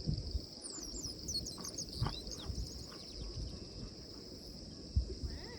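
Steady high-pitched insect chorus, with a few quick falling bird chirps about a second in. Several low thumps cut through, the loudest near the end.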